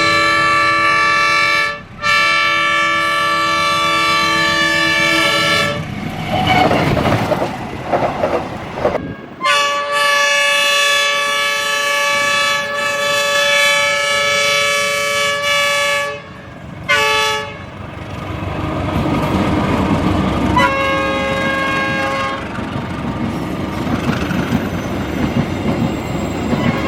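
CC201 diesel locomotive's S35 air horn sounding a chord in several blasts: two long ones, then a longer one of about six seconds, a short toot, and a fainter blast. Rail wheels clatter and the train rumbles by between the blasts.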